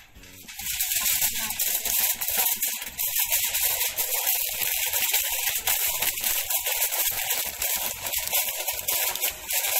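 Aluminium foil crinkling and crackling as it is pressed and crimped by hand over the rim of a plastic bowl. The sound starts about half a second in and goes on steadily.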